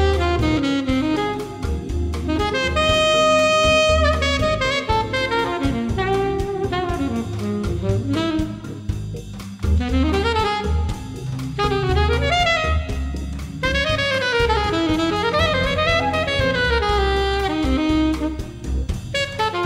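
Instrumental jazz background music: a melody line with sliding notes, which sounds like a saxophone, over bass and drums.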